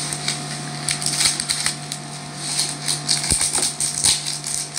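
Crisp fried shallots rattling and crackling as they are shaken out of their container onto noodles: irregular dry clicks, over a steady hum.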